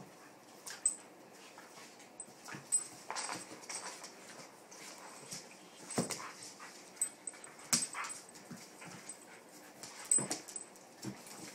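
Two dogs play-wrestling on a wooden floor: irregular short dog noises and scuffling, with sharp clicks scattered throughout.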